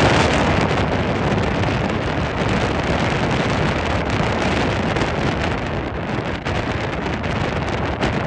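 Steady wind noise buffeting the microphone of a speedboat running fast along a river, mixed with the boat's motor and the rush of water underneath.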